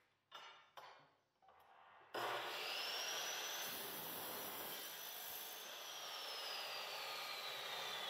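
A few light knocks, then about two seconds in a Milwaukee industrial abrasive chop saw starts with a rising motor whine and its toothless abrasive cut-off wheel grinds through a steel golf shaft. In the second half the whine slowly falls as the motor coasts down.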